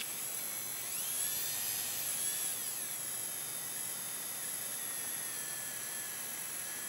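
Salvaged CD-drive spindle brushless DC motor running with a high-pitched whine. About a second in the pitch rises as the motor speeds up, falls back a couple of seconds later, then holds steady. The speed is set roughly by the resistance of a hand on the driver's speed-control input.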